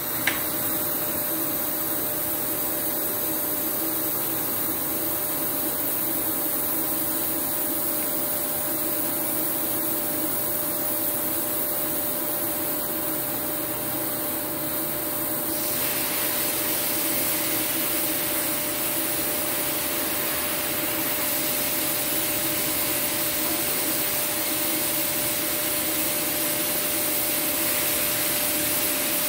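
TIG welding arc on steel plate with argon shielding gas, a steady hiss with a faint constant tone underneath, as an automatic carriage draws the torch along the joint. About halfway through the hiss turns brighter and fuller.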